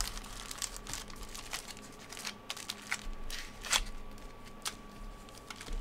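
Foil wrappers of Mosaic soccer trading-card packs crinkling and rustling as the packs are handled, in scattered short crinkles and light ticks.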